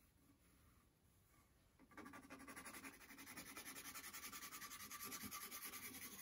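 A pencil scribbling on a wooden banjo neck blank, shading the surface with rapid back-and-forth scratchy strokes that start about two seconds in.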